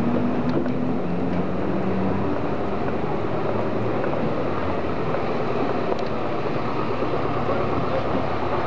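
Steady city street noise: traffic running, with a vehicle engine humming through the first two seconds or so.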